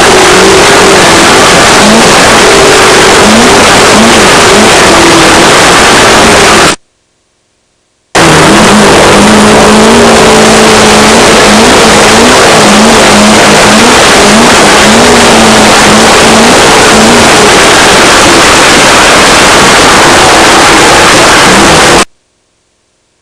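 Off-road race car's engine revving up and down as it climbs and drops through the gears, under a loud, constant rush and rattle of the car crashing over rough ground, heard from a camera mounted on the car. The sound cuts out completely for about a second twice, about seven seconds in and near the end.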